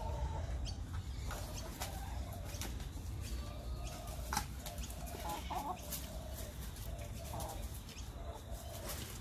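A small flock of backyard hens clucking, short low calls repeating on and off, with scattered sharp taps among them.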